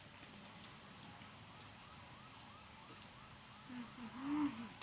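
A faint, even series of short chirps, each rising then falling in pitch, about three a second. Near the end a short hummed vocal sound glides up and down.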